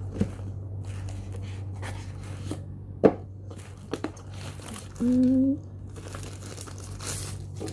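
Paper and cardboard packaging of a Honor X8a phone box rustling and crinkling as the box is opened and its white paper insert handled, with a sharp tap about three seconds in.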